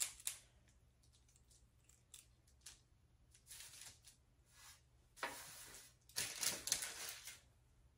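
Squeeze-handle cookie scoop working through peanut butter cookie dough and releasing it onto parchment paper: several short, faint scraping and rustling noises, the longest near the end.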